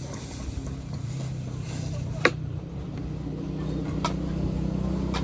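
A motor or engine running steadily with a low hum, with a sharp click or knock about two seconds in and fainter ones later.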